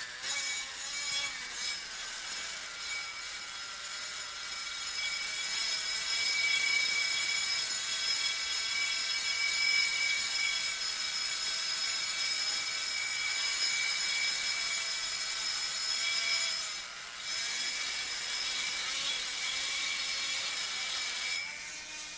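Small hand-held electric motor pressed against the rim of a gimbal-mounted gyroscope wheel, whirring with a rubbing hiss as it spins the wheel up to speed. It falters briefly late on, then cuts off just before the end.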